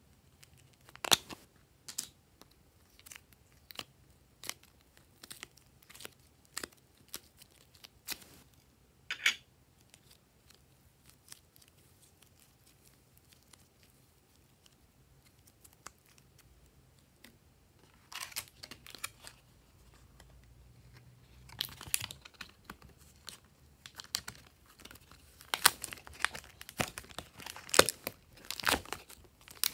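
Hands working slime and soft clay: scattered sharp sticky clicks and pops at first, a quiet spell in the middle, then dense crackling in the last third.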